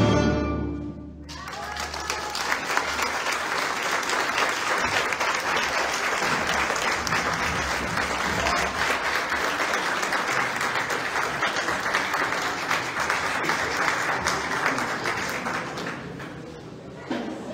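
A string orchestra's last chord dying away, then the audience applauding steadily for about fifteen seconds, fading near the end.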